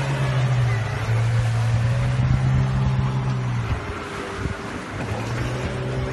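Outboard motor running steadily at speed, a continuous engine hum that drops away briefly about four seconds in and then comes back, with wind and water noise underneath.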